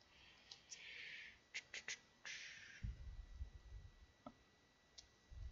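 Faint handling of a Pokémon trading-card code card: two short, papery rustles, a few light clicks, and some soft low bumps.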